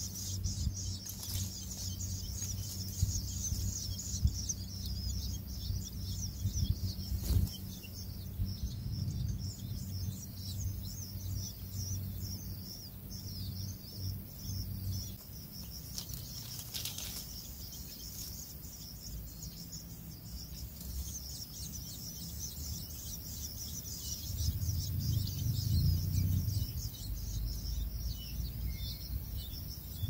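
Long-tailed shrike nestlings begging: a continuous fast, high chittering. Underneath runs a low rumble that swells near the end.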